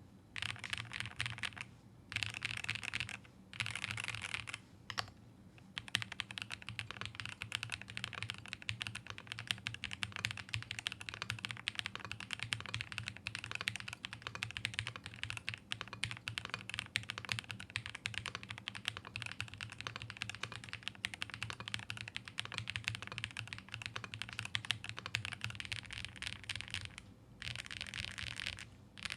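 Fast typing on a CYBERBOARD R2/R3 mechanical keyboard fitted with a gasket-mount flex kit, its keys clicking densely. There are three short bursts of keystrokes at first, then a long stretch of rapid continuous typing, and a final short burst near the end.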